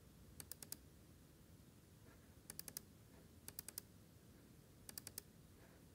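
Computer mouse double-clicking four times, each a tight cluster of sharp little clicks, with near silence between.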